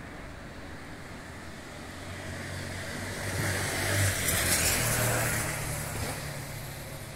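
A car passing by, its engine and tyre noise swelling to a peak about four to five seconds in, then fading away.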